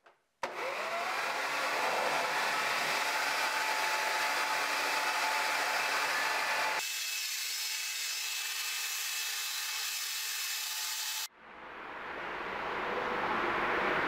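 Corded electric Toro leaf blower switched on and running steadily, its motor spinning up as it starts. About seven seconds in, the sound thins out as the nozzle is worked into the dryer vent pipe. After a short break, a rush of air swells up as the blower's air drives out through the vent.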